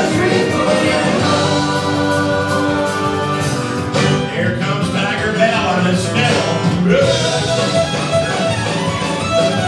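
Live country band playing, with electric and acoustic guitars over bass, and a fiddle taking the lead in the last couple of seconds.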